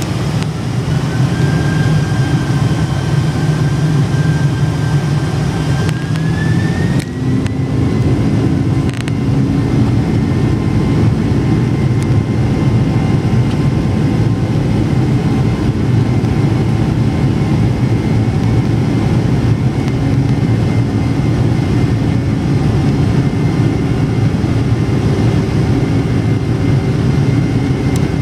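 Boeing 747-400's General Electric turbofan engines running on the ground, heard from inside the cabin: a steady low rumble under a thin fan whine. The whine rises in pitch in the first second or so and again about seven seconds in as power is raised, then holds steady.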